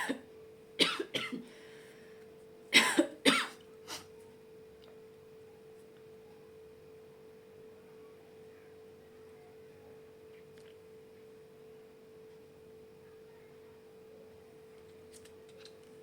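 A woman coughing in several short, sharp coughs grouped in quick clusters over the first four seconds, then stopping. A faint steady tone hums underneath throughout.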